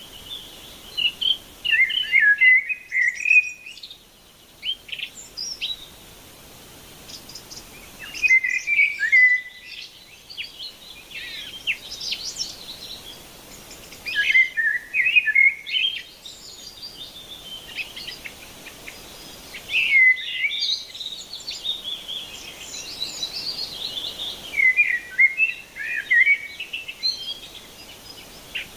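Songbirds singing in bursts of quick chirps and warbling phrases every few seconds, over a faint steady background hiss.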